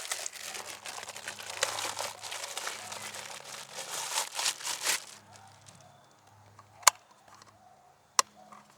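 Crinkling and rustling of handled material for about five seconds during work on a popup camper's shore power hatch, then quieter, with two sharp clicks near the end.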